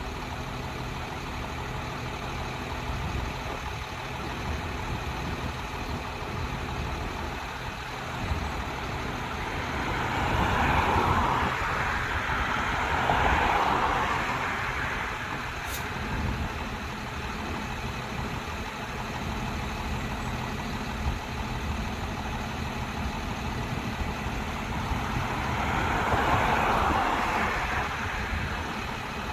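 ASC T-128 tornado siren's rotator motor turning the siren head with the chopper switched off, as in a silent test. It makes a steady mechanical hum with a hiss that swells and fades twice, about fifteen seconds apart.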